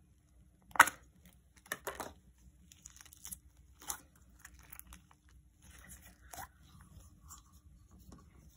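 Plastic slime tub being opened, with a sharp snap about a second in as the lid comes off. Then scattered sticky crackling and soft tearing sounds as slime is pulled out of the tub by gloved hands.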